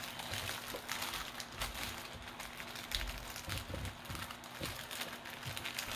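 Plastic poly mailer bag crinkling and crackling as hands grip and pull at it to open it: an uneven run of small crackles.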